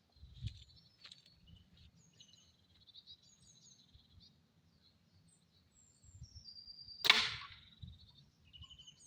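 An arrow shot from a bow hits a plastic hard hat with one sharp crack about seven seconds in, punching straight through it.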